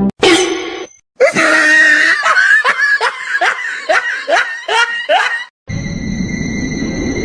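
Someone laughing hard in quick, rising bursts, about two to three a second. A little over halfway through it cuts to a steady hum with a high, thin whine.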